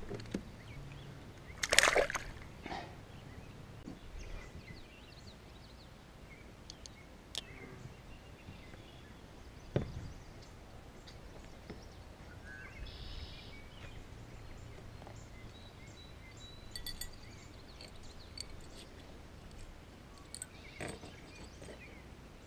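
Quiet outdoor background with scattered light clicks and knocks from handling fishing gear, and one louder short noise about two seconds in.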